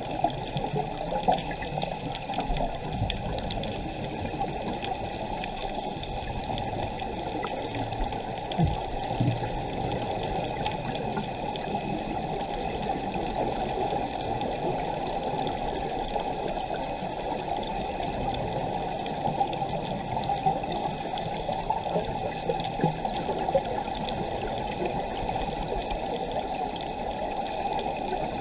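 Underwater rush and bubbling from a scuba diver's exhaled regulator bubbles, heard muffled through an action camera's waterproof housing, a steady churning noise with a few brief louder bubble bursts.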